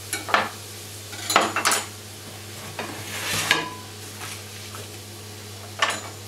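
Kitchen handling on a stainless steel counter: a few short, sharp knocks of a ceramic dish and utensils, and a brief paper rustle as a sheet of puff pastry on baking paper is lifted out of the dish and laid down.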